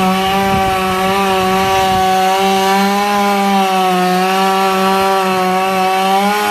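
Two-stroke chainsaw running near full throttle and cutting into a tree trunk, its steady high engine note dipping slightly in pitch as it loads up in the wood.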